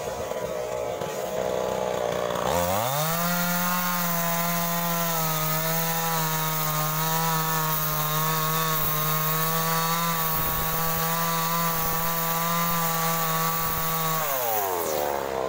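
Two-stroke chainsaw cutting through a coconut palm trunk. About two and a half seconds in it revs up to full throttle and holds a steady pitch through the cut. Near the end the throttle is released and the engine falls back toward idle.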